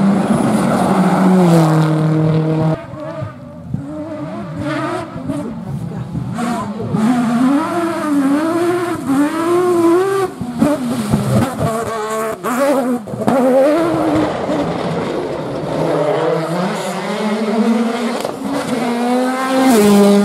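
Rally car engines revving hard at speed, the pitch rising and falling repeatedly with gear changes and lifts off the throttle.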